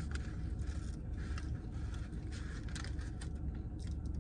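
Yellow paper food wrapper crinkling and rustling in short crackles as fried chicken is picked out of it, over a steady low hum inside the car.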